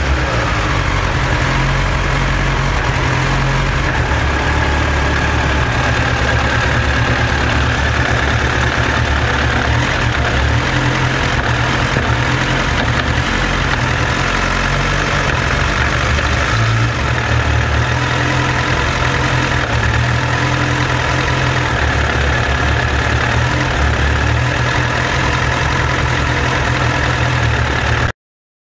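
Suzuki Bandit 1200 S inline-four engine idling steadily with a mechanical rattle, which the owner fears is a sign of engine damage. The sound cuts off abruptly near the end.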